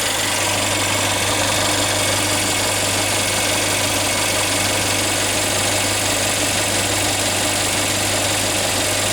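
Electric radiator cooling fan of a Mercedes-Benz A200 1.6 turbo running steadily, a constant rush of air, over the engine idling. The PWM speed-controlled fan has switched on at 105 °C coolant temperature to pull heat from the engine.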